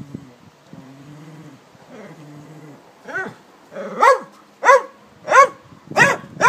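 Cavalier King Charles spaniel growling low, then breaking into a run of sharp barks about every half second from about three seconds in.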